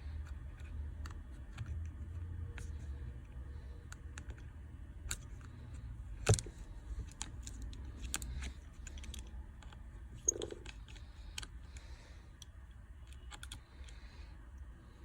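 Small repair tools and parts clicking and tapping against an iPhone XR during disassembly, scattered irregular clicks with one sharper, louder click about six seconds in.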